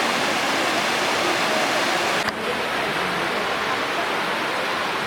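Steady rushing of a waterfall, Elephant Falls' cascade, with a brief click and dip in level about two seconds in.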